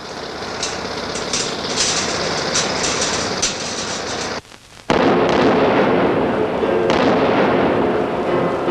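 Rock blast set off by explosive charges: a sudden loud explosion about five seconds in, followed by a long rumbling roar that surges again about two seconds later. Before it there is a steady noisy hiss with scattered clicks.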